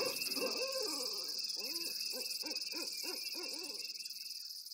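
An owl hooting in a quick run of short rising-and-falling notes, about three a second, over a steady high drone of night insects. The sound fades out near the end.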